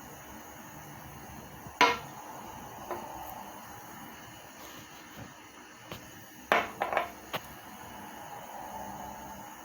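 Kitchen utensils knocking against cookware. There is one sharp knock about two seconds in, then a quick cluster of three or four knocks around six and a half to seven seconds.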